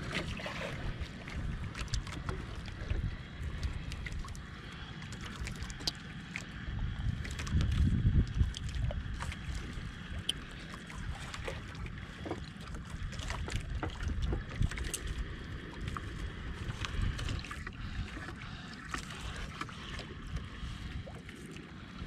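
Wind buffeting the microphone and sea water lapping against a small wooden boat. The rumble swells about a third of the way through, and light clicks and ticks are scattered throughout.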